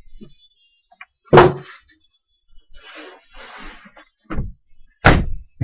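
Cardboard packaging handled on a table: a loud thump about one and a half seconds in, a papery rustle of packaging, then two more thumps near the end as boxes are set down.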